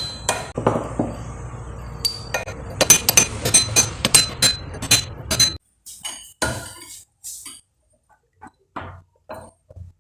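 Hammer striking a pointed steel tool to bend up the lock tabs on a motorcycle rear sprocket's bolts: a quick series of sharp, ringing metal-on-metal taps for about five seconds. After that come a few quieter clinks of metal parts.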